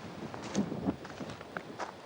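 Footsteps on loose stones and rock, several uneven steps in quick succession, picked up by a camcorder's built-in microphone.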